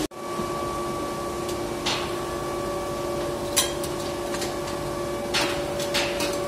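Steady industrial machinery hum made of several constant tones, with a few sharp metallic knocks and clanks, about two and three and a half seconds in and a cluster near the end.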